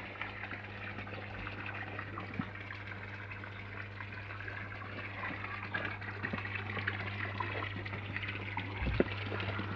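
Water from a small garden-pond waterfall splashing steadily into the pond, with a low steady hum underneath.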